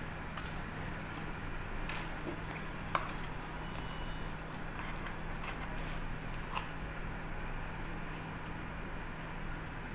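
Cardboard product box being handled and opened: light scraping and rustling of card as the inner tray slides out and an insert is lifted, with a few small taps about two, three and six and a half seconds in, over a steady low hum.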